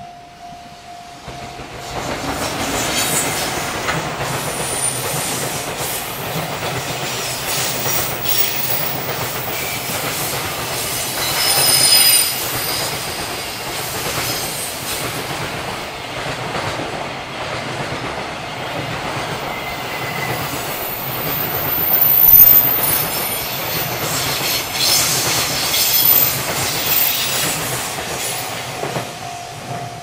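A JR Freight container train hauled by an EF210 electric locomotive passing close by. The wagons' wheels clatter rhythmically over the rail joints, with high-pitched wheel squeal on the curve, loudest about 12 and 22 seconds in.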